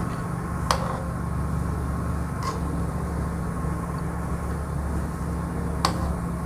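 Mathri frying gently in hot oil in a steel pan over a medium gas flame: a steady sizzle over a low hum, with three short, sharp clicks.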